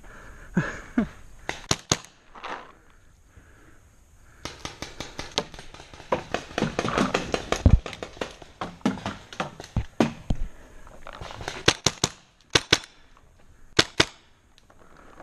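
Paintball markers firing in short strings of sharp pops: a few shots about two seconds in, then a quicker run of five or six near the end.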